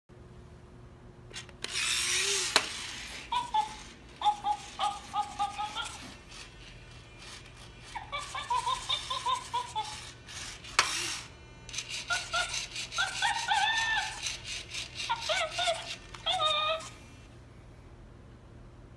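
Robotic toy chimpanzee making electronic chimp hoots and chattering in several short bursts, over the whirring of its motors as it sits up and walks. The sounds start about two seconds in and stop near the end.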